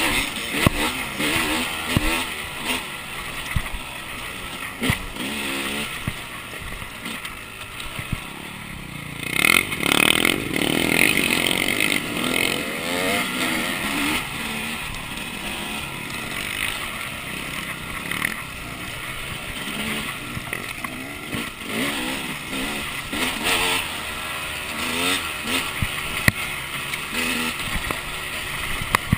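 Two-stroke engine of a KTM 300 dirt bike being ridden along a trail, revving up and down constantly as the throttle is worked, under a layer of rushing wind noise.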